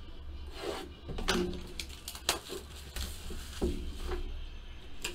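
A cardboard trading-card box being handled and opened by hand: a handful of separate knocks and scrapes about a second apart, over a low steady hum.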